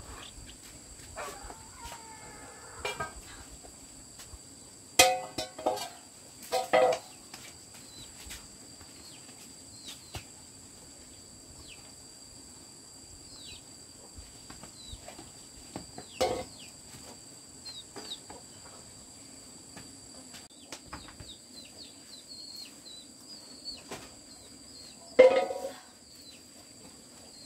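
Chickens clucking and squawking in short calls, loudest about five, seven and twenty-five seconds in, over a steady high-pitched hum.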